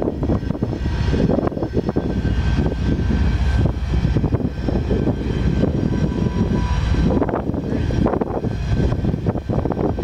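A train passing close by: the steady, loud rumble of a diesel locomotive and rolling stock, with many short clacks from the wheels running over the rails.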